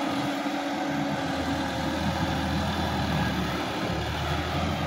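Sonalika DI-50 RX tractor's diesel engine running steadily as it pulls a puddling implement through flooded paddy mud.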